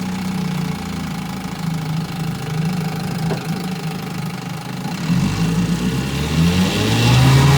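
1962 Sea King 5 hp two-cylinder two-stroke outboard motor, freshly rebuilt, running steadily on a 16-to-1 fuel mix. Near the end the throttle opens and the engine speeds up, rising in pitch and getting louder.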